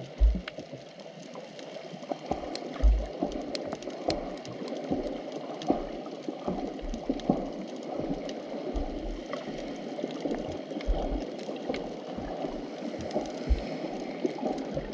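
Underwater sound of shallow surf surging over a sandy seabed: a steady churning wash with scattered crackling clicks and irregular low thumps every second or so.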